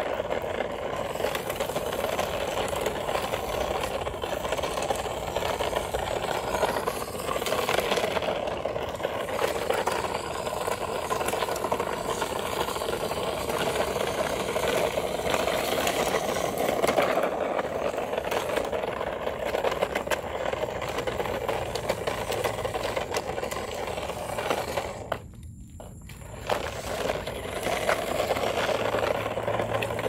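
Battery-powered RC rock crawler's motor and gears whirring as it tows a plastic toy dump truck, with the plastic wheels rattling and scraping over rough concrete in a steady, noisy clatter. The sound drops away briefly about 25 seconds in, then resumes.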